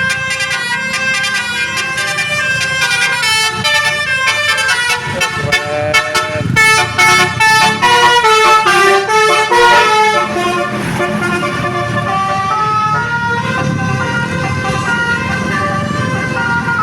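Indonesian 'telolet' bus horn, a multi-tone musical air horn, playing a fast tune of stepping notes, loudest about halfway through. A bus engine runs underneath.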